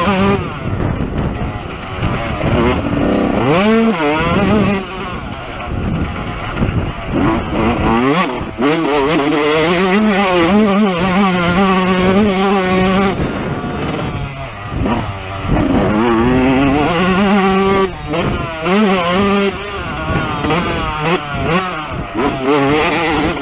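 A 2019 Yamaha YZ125's two-stroke single-cylinder engine being ridden hard, revving up and dropping back again and again as the throttle is worked through the turns and straights. The pitch climbs and falls continually, and the throttle is chopped briefly a few times.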